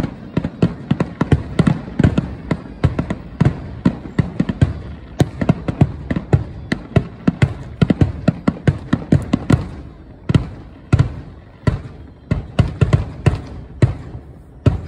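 Aerial fireworks shells bursting in a rapid, dense barrage of bangs, several a second, thinning to more widely spaced bangs after about ten seconds.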